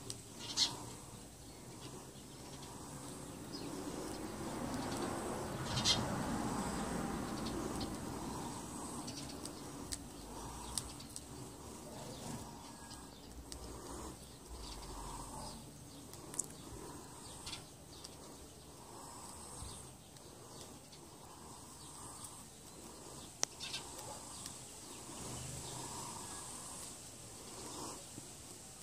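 Faint animal calls repeat every couple of seconds over outdoor background noise. A few sharp clicks come through, and a swell of noise rises and falls in the first third.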